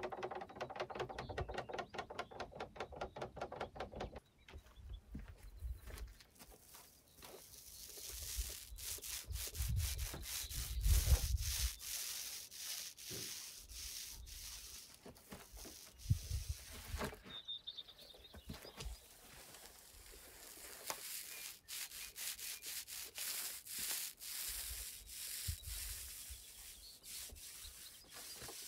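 Small paint roller rolling stain along rough-sawn pine boards, a repeated rubbing scrape as it goes back and forth. For the first few seconds, a fast, even scraping of stain being stirred in its container.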